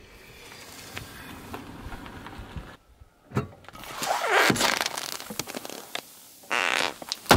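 A car tyre slowly rolling onto soft play dough, faint squashing with small clicks; then a tyre crushing an aluminium drink can against an inflatable plastic ball: crackling crumpling of the can with a squeal that falls in pitch, and a loud hiss near the end as the can bursts and sprays its liquid.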